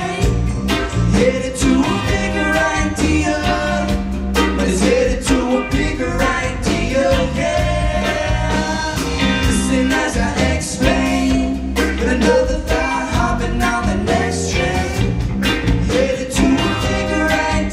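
Band playing a song: electric guitars and a drum kit with a man singing lead.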